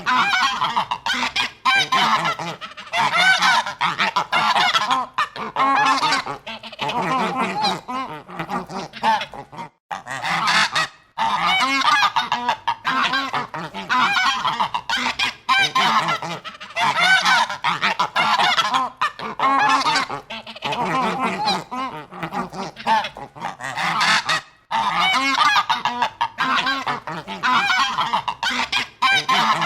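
A flock of domestic geese honking, many overlapping calls in bursts with a few short pauses.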